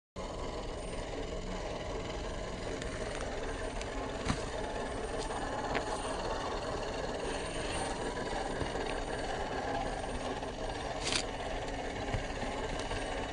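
1/10-scale Lesu Unimog 406 radio-controlled truck running off-road: a steady drivetrain and rattling noise, with a couple of sharp knocks.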